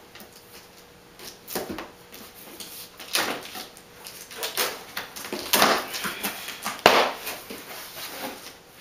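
Packaging and a plastic outdoor speaker being handled while unboxed: irregular rustling and scraping, with a sharp knock about seven seconds in.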